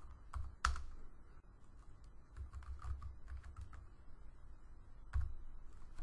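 Computer keyboard typing: a few scattered keystrokes, then a quicker run of keystrokes from about one and a half to nearly four seconds in, and one louder single keystroke about five seconds in.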